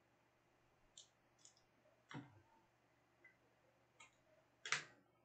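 A few faint, short clicks and taps from trading cards and plastic card holders being handled and set down, the last one the loudest.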